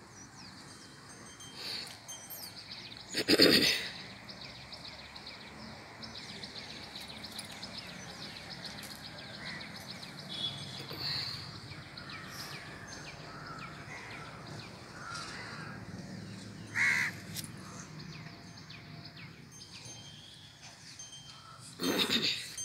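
Birds calling: a steady chatter of high chirps, with a loud crow-like caw a few seconds in and another near the end.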